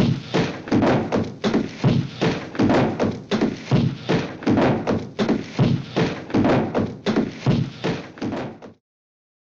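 A fast, even run of thuds, about two or three a second, that cuts off suddenly near the end.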